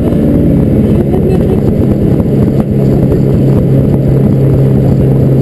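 Mitsubishi rally car engine running loud inside the bare, roll-caged cabin, with road rumble and fine ticking under it. A little over halfway through, the engine settles into a steady, unchanging note.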